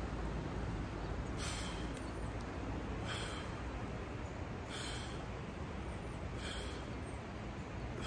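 A man's short, sharp breaths, four of them about a second and a half apart, in time with swings of a heavy wooden stick, over a steady rushing hiss.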